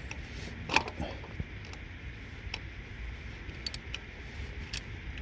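A handful of separate sharp clicks and light knocks from hand tools and parts being handled at the engine, the loudest about a second in, over a low steady hum.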